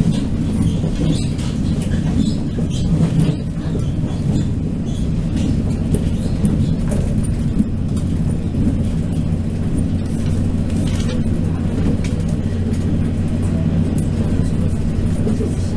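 Cabin noise inside a TRA DR2900/3000 diesel railcar running at speed: a steady low engine drone under wheel-and-rail rumble, with scattered sharp clicks and knocks.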